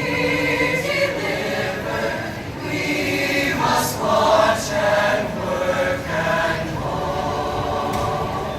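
A choir singing together, many voices holding sung notes and moving through the words of a song.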